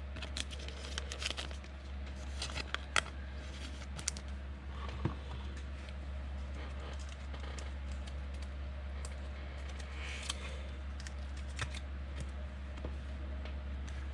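Trading cards and pack wrappers being handled: scattered light clicks and soft crinkling, over a steady low electrical hum.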